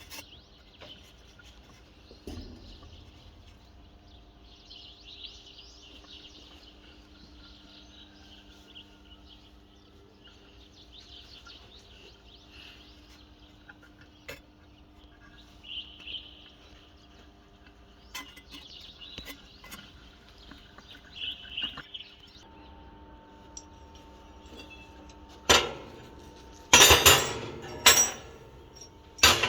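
Birds chirping over a faint steady hum, then several loud metallic clanks near the end: pieces of steel being knocked together, each clank ringing briefly.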